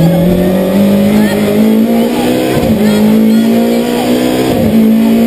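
Rally car's engine heard from inside the car, running hard at high revs, its pitch climbing slowly as the car accelerates. The pitch dips briefly and recovers about four and a half seconds in.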